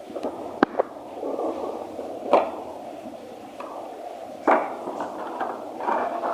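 Hands handling the action camera's box and packaging: steady rustling and scraping with a few sharp clicks and knocks.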